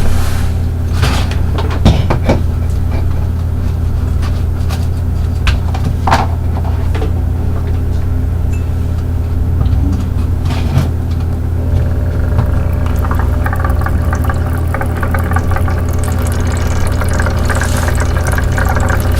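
Toy bubble aquarium running: water bubbling and gurgling over a steady low motor hum, with a few sharp plastic clicks and taps in the first half, and the bubbling growing busier near the end.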